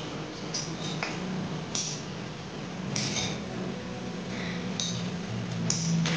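A metal spoon clinking and scraping against a glass blender jar, with about half a dozen separate clinks over a steady low hum.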